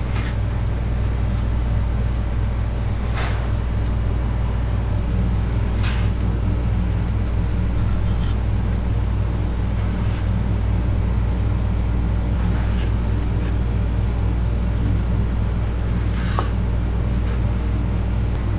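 Steady low machine hum, with a knife cutting through dried mullet roe and knocking on a wooden cutting board every few seconds.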